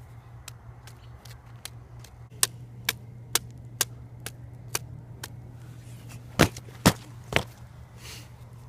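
A series of sharp knocks or taps, about two a second, growing stronger, with three loudest strikes close together near the end, over a steady low hum.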